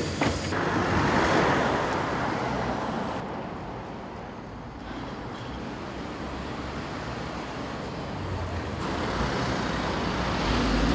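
City street traffic noise, a steady hiss of passing road vehicles, with a car's low rumble growing louder near the end as it draws close.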